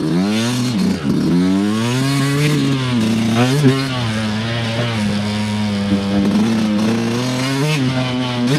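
Dirt bike engine running as it is ridden along a trail, its pitch climbing and dropping with the throttle, with quick blips. It then settles into a fairly steady note through the second half.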